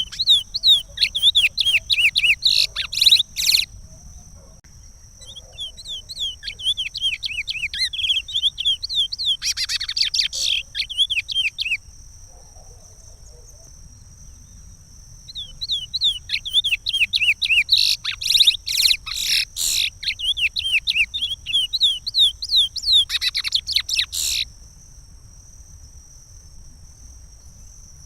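Chestnut-bellied seed finch (curió) singing the Pará regional song: three long phrases of quick whistled notes broken by rapid trills, with pauses of a few seconds between them. A faint steady high-pitched tone lies underneath.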